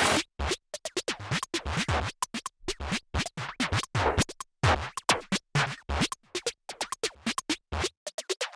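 Electronic music with DJ-style record scratching, chopped into a rapid stutter of short bursts with silent gaps between them.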